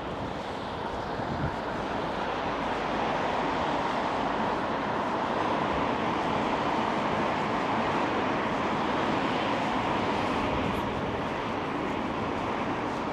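Passing traffic: a steady rush of vehicle noise that builds over the first few seconds and eases slightly near the end.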